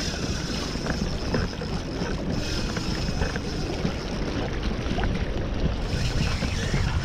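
Wind buffeting the microphone in a steady rumble, with water lapping at a kayak.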